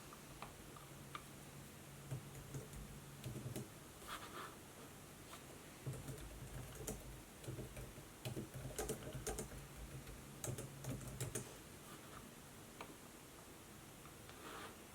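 Laptop keyboard typing: irregular bursts of key clicks, from about two seconds in until near the end, where it stops.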